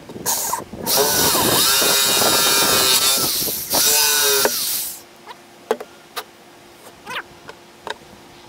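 Electric drill cutting a one-inch hole through a fiberglass boat deck, running in two spells of a couple of seconds each, with a whine that rises each time the motor spins up. It stops about five seconds in, and a few light clicks and taps follow.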